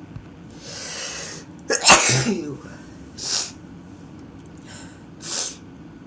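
A person sneezing: a long drawn-in breath, then one loud, sharp sneeze about two seconds in, followed by two short breathy sounds.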